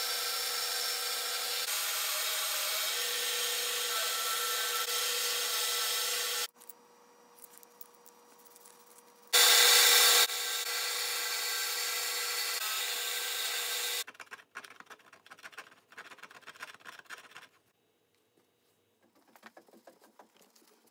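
A power tool runs steadily with a constant whine over a grinding hiss. It stops about six seconds in, comes back with a short louder burst around nine and a half seconds, then runs again. After about fourteen seconds only scattered light clicks and scrapes of handling remain.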